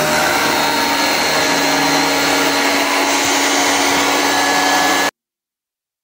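Vacuum cleaner running, a loud steady whine, cutting off suddenly about five seconds in.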